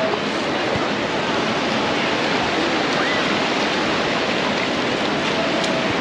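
Steady wash of surf breaking and running up a shallow beach, with faint voices of a crowd of bathers in the background.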